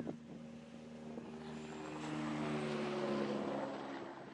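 A motor vehicle driving past: engine hum and tyre noise swell to a peak about three seconds in and then fade. A short knock at the very start.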